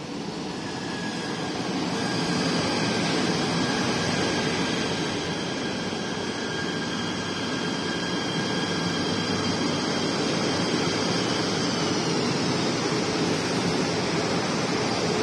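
KTM Komuter electric multiple-unit train pulling in alongside the platform: a steady rumble of wheels on rail, overlaid with several high electric whines. The sound grows louder over the first two seconds, and about twelve seconds in one whine drops in pitch as the train slows.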